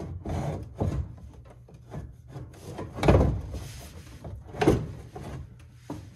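Plastic air-conditioning evaporator housing being shifted and pressed against the car's firewall: irregular rubbing and scraping, with two louder knocks about three seconds in and a second and a half later.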